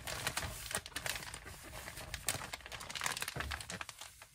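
Plastic mushroom grow bag crinkling as gloved hands handle it and wipe it down with a paper towel: a dense, irregular run of rustles and crackles.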